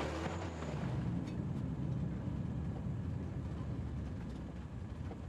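A vintage car driving past with tyres hissing on a wet road, the hiss fading within the first second into a low, steady engine rumble.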